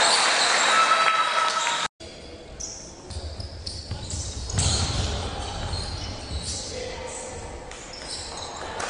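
Basketball game sound in a large sports hall: a ball bouncing on the hardwood floor, with players' and bench voices echoing around it. The sound drops out for an instant about two seconds in, then carries on more quietly.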